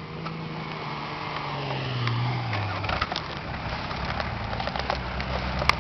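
Nissan Patrol Y60's 4.2-litre straight-six diesel engine working up a steep slope, its note swelling and then dropping in pitch about two and a half seconds in. Scattered clicks, with a sharp click near the end.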